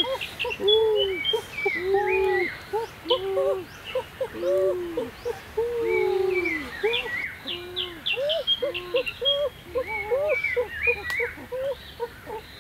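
Several birds calling at once: a dense run of low, arched calls, one after another, with quick high chirps and trills over them.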